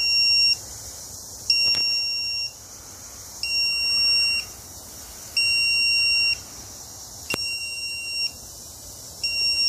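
Lost-model locator beeper on a crashed RC airplane, giving high-pitched beeps about a second long, roughly one every two seconds, so the downed plane can be found. Two sharp clicks sound between beeps.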